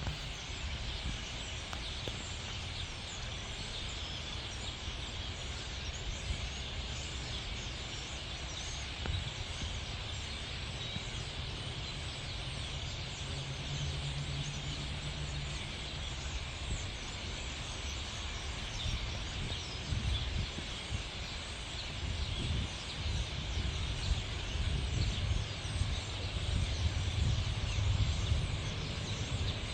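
A huge flock of European starlings chattering together in a dense, continuous din of overlapping chirps and whistles. A low rumble runs underneath and grows stronger in the second half.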